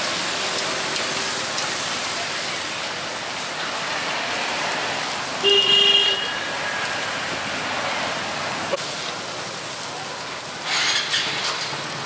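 Street ambience: a steady noisy hiss, with a short vehicle horn toot about halfway through and a brief noisy burst near the end.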